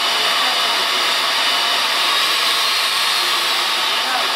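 Electric diamond core drill running steadily, its bit cutting a hole in reinforced concrete.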